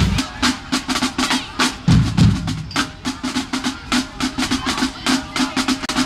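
Percussion music: a drum cadence of quick, evenly spaced drum and rim strokes, several a second, over a pulsing low drum tone.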